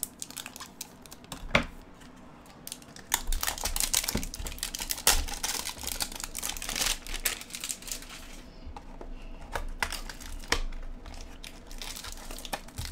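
Clear plastic wrap crinkling and tearing as it is pulled off a hanger box of baseball cards, with many sharp crackles, thickest in the middle and sparser toward the end.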